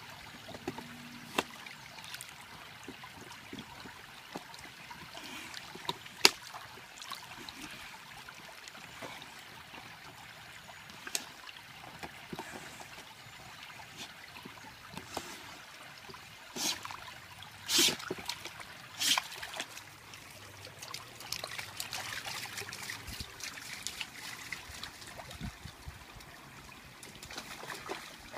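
Shallow stream trickling steadily over rocks, with scattered sharp snaps and splashes as a dog bites and tears at a rotten log in the water. The loudest of these come as three bursts a little past the middle.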